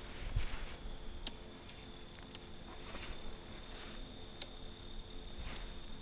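Night insects, crickets or similar, trilling in a steady high unbroken tone, with a few sharp clicks and rustles of handling and movement close by.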